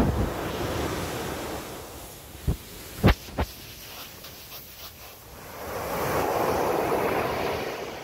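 Ocean waves breaking on a sandy beach, the foam hissing up the sand, then fading before the next wave breaks and swells about six seconds in. A few short thumps sound near the middle.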